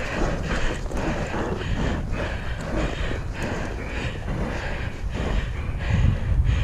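Retired racehorse's hooves striking the ground in a steady running rhythm, with wind buffeting the microphone.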